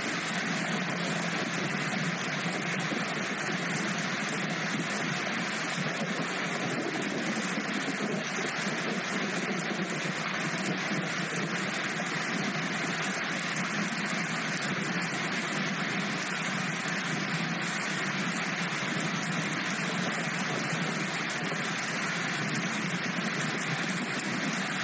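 Steady road noise inside a moving car in the rain: a hiss of tyres on the wet road and falling rain over a low engine hum.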